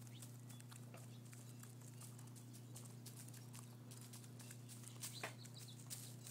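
Hens pecking chicken scratch out of straw: many faint, quick, irregular taps and clicks of beaks striking grain and straw.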